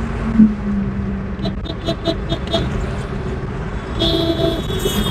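Road and engine rumble inside a moving car on a highway, with a brief low bump under a second in. A quick run of about six short horn beeps follows, then a longer horn blast about four seconds in.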